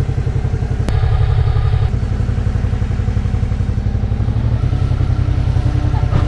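Suzuki V-Strom 650's V-twin engine running at low road speed, a steady low throb that gets a little louder about two seconds in. A single sharp click about a second in.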